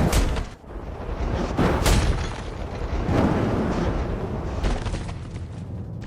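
Cinematic fight sound effects: three heavy booms, each with a rushing whoosh, about a second and a half apart, over a continuous bed of effects and background music.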